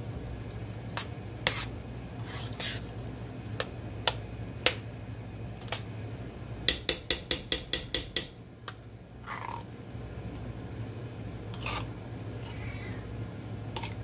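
Metal spoon scraping thick canned chili out of a tin can into a stainless steel pot, with scattered clinks of spoon against can and pot. Around the middle comes a quick run of about ten clinks in a row. A low steady hum sits underneath.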